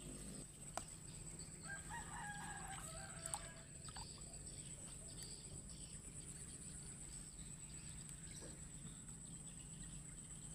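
A rooster crowing once, faintly, for about two seconds, starting a couple of seconds in, over a steady low hum, with two short clicks.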